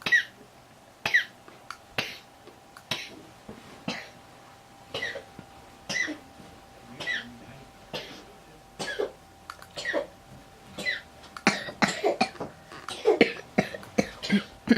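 A person with a cold coughing over and over: short single coughs about once a second, then a quicker run of coughs and throat clearing near the end.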